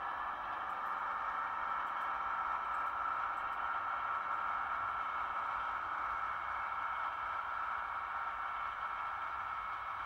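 Model railway train running on the layout: a steady electric motor whine with rolling wheel noise, swelling a little and then easing as the model class 158 unit pulls out of the platform.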